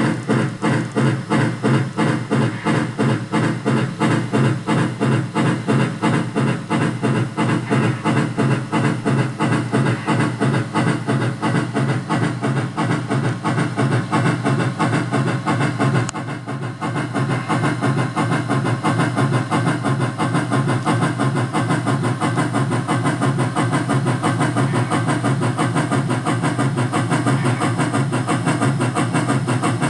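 Soundtraxx Micro TSU 750 sound decoder playing the steam exhaust chuffs of an articulated AC-12 locomotive through a speaker, a fast, even beat of chuffs with a brief dip in level about halfway through.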